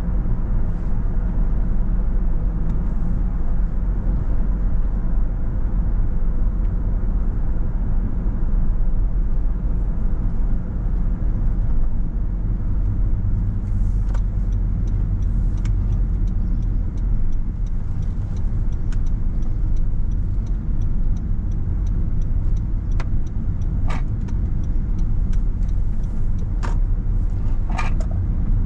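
Steady low rumble of a car driving along the road, tyre and engine noise with no let-up. In the second half a few faint short clicks and brief higher sounds come through.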